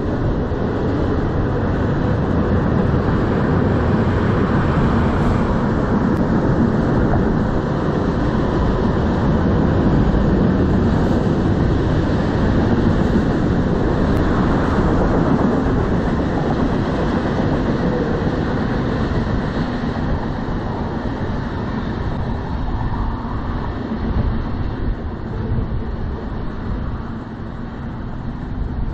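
Cars of a manifest freight train rolling along the rails with a steady rumble of steel wheels. It eases off in the last several seconds as the end of the train pulls away.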